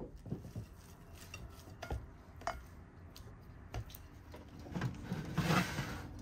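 Cooking utensils and dishes handled: a few separate light knocks and clinks, then a longer, louder scraping rustle about five seconds in.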